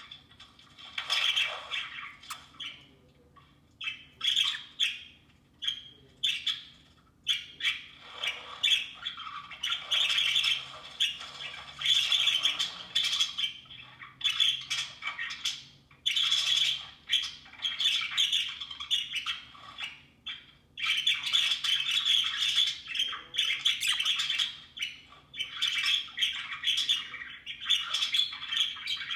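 Budgerigars chattering and squawking in irregular bursts, with short pauses between.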